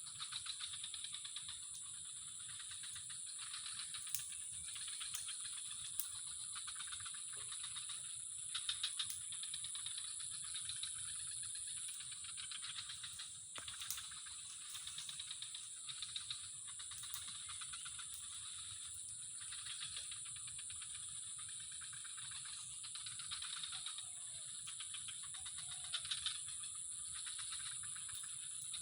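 Insects chirping in a steady outdoor chorus: a continuous high-pitched trill with a dense, fast pulsing beneath it and a few faint ticks.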